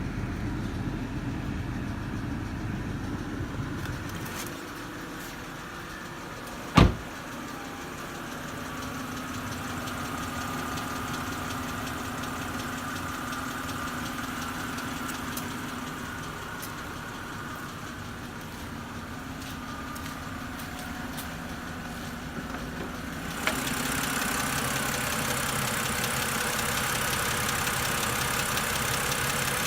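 BMW N52 straight-six engine idling steadily with a ticking from the valvetrain, which the owner takes for lifter tick. A single sharp click about seven seconds in, and the sound grows louder and brighter about three-quarters of the way through.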